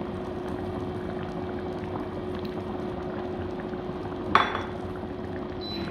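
Thick channa masala (chickpea curry) bubbling in the pan just off the boil, over a steady low hum. There is one sharp clink about four and a half seconds in.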